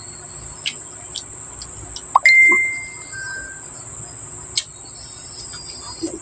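Insects chirring steadily at a high pitch, with scattered small clicks of eating by hand and mouth. A little over two seconds in comes a clear whistle-like tone lasting under a second, followed by a fainter, lower one.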